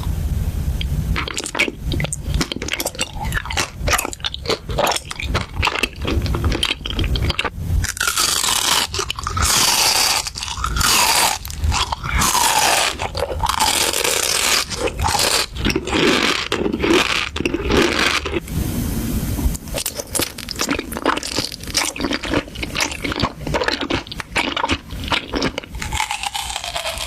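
Close-up crunchy biting and chewing of food, a dense run of irregular crunches and scrapes, with a few high tones that slide downward in the middle stretch.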